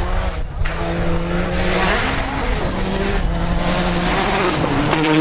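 Rally car engine at high revs on a gravel stage, its note rising and dropping several times as it changes gear and lifts, over the rough hiss of tyres on loose gravel.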